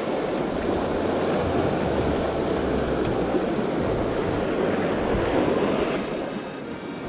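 Sea waves washing in among breakwater tetrapods, a surging rush of water that swells and then eases off about six seconds in.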